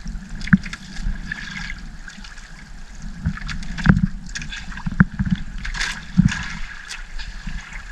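Fish being worked out of a wet gill net in a small boat: several sharp knocks against the boat, about five, over a steady wash of trickling water and rustling netting.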